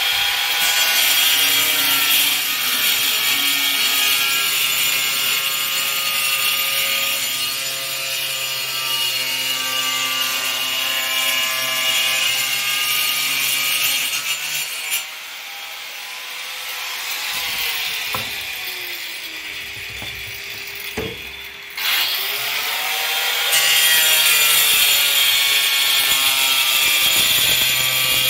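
Handheld angle grinder with a cutting disc cutting through a fibre cement sheet: a motor whine under loud, gritty cutting noise. About halfway through the cutting stops and the motor winds down; later the grinder is switched on again, spins up and cuts once more.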